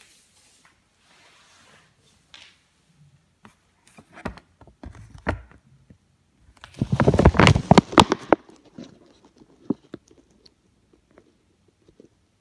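Handling noise from the recording device as it is reached for and stopped: scattered clicks and knocks, with a loud burst of rubbing and tapping about seven seconds in, then a few faint ticks.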